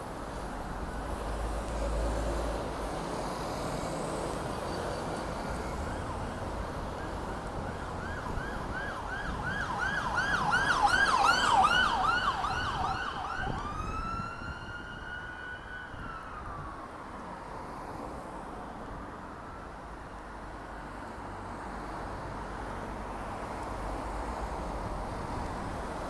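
Emergency vehicle siren going by on a city street: a fast yelp, about four sweeps a second, that grows loudest near the middle, then turns into one long wail that falls away. Steady traffic noise runs underneath.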